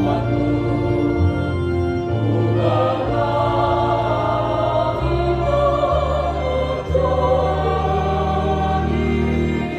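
Choir singing in harmony over held bass notes that change every second or two.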